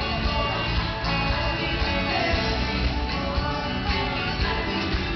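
Live band music at a concert, with strummed guitar prominent and little or no singing.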